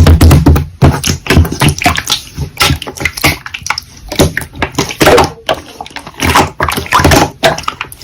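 Slime being squeezed and kneaded by hand: irregular squishing with crackling, popping clicks.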